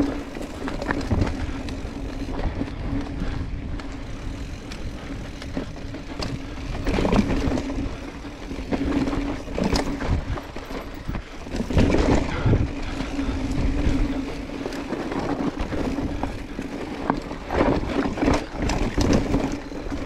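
Mountain bike riding down a rough, technical trail: tyres rolling over dirt and rock with repeated knocks and rattles as the bike takes hits, over a steady hum, with harder clusters of impacts several times.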